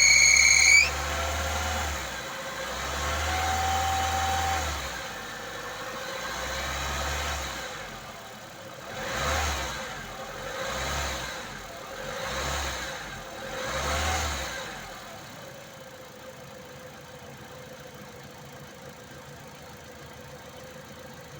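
Lada Niva Bronto engine revved under the hood. A high, wavering whistle cuts off under a second in, and a short, lower whistle sounds around the fourth second: the whistle from under the hood that shows under load. The engine then rises and falls in several slow swells, gives four short revs about a second and a half apart, and settles to a steady idle.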